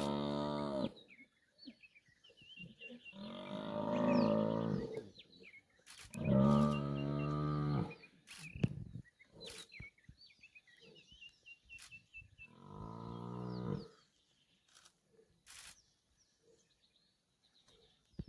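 Cape buffalo bull bellowing in distress while lions pull it down: long, low moaning calls of about two seconds each, four of them, with birds chirping faintly in the gaps.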